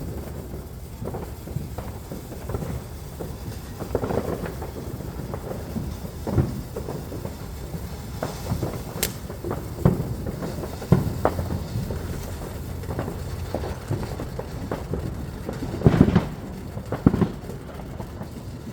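Fireworks going off: irregular booms and pops over a steady low rumble, with one sharp crack about halfway through. The loudest bangs come as a pair near the end.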